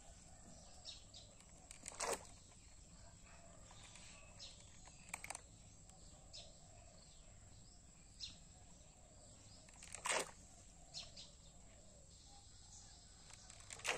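Faint outdoor ambience with a few short bird chirps and three or four sharp clicks, the loudest about two, five and ten seconds in.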